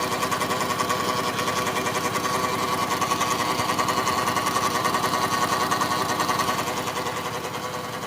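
2013 Dodge Grand Caravan's 3.6-litre V6 running, with a rapid, even ticking clatter over a steady whine from where the engine meets the transmission. The owner has ruled out the serpentine belt and does not know the cause. The sound eases slightly near the end.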